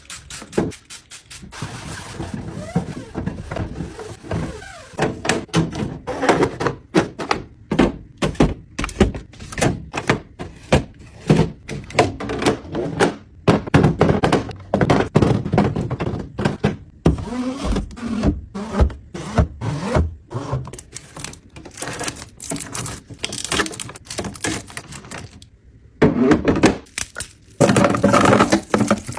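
Continuous knocks, taps and clatters of containers and packaging being handled and set down one after another, as in restocking a fridge, with a brief pause near the end.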